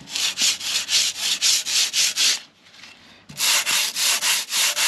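Sandpaper on a hand sanding block rubbed back and forth over hardened masonry filler on a concrete fence post, about four strokes a second. The strokes stop for about a second in the middle, then start again.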